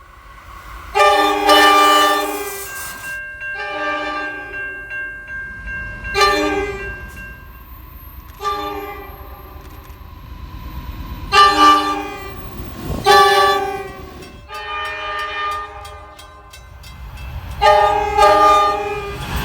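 Locomotive air horn sounding a series of long and short blasts, several notes sounding together as a chord, over the low rumble of the passing train.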